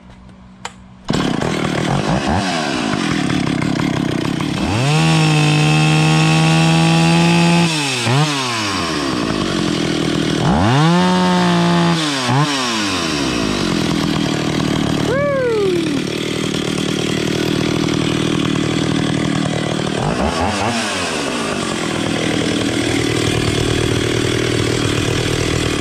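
Stihl 031AV two-stroke chainsaw engine running at idle, revved up and held high twice, then blipped briefly a couple of times, while its carburetor mixture is being adjusted.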